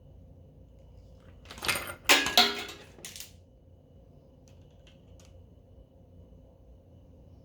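Small metal objects clattering on a workbench: a quick cluster of knocks with a brief metallic ring, then a few faint clicks.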